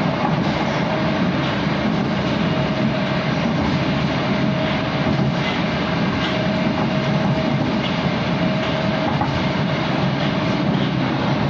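Moskva-2020 metro train running through a tunnel, heard inside the car: a steady rumble of wheels on rails, with a faint high hum that fades in and out.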